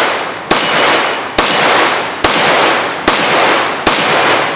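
Ruger PC Charger 9mm semi-automatic pistol firing five shots in a steady rhythm, a little under a second apart, each shot trailing off in a long echo.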